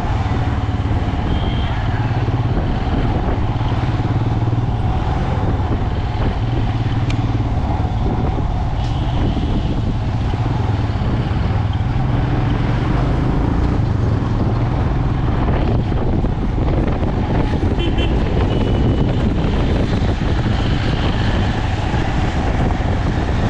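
Motorcycle riding along the road: steady engine and road noise with a heavy low rumble that does not let up.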